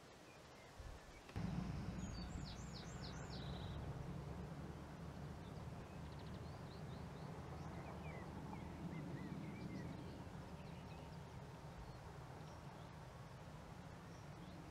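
Open-field ambience: a steady low rumble, likely wind or distant noise, that starts suddenly about a second and a half in. Over it, small birds call: a quick run of high, falling chirps about two seconds in, then scattered softer chirps later.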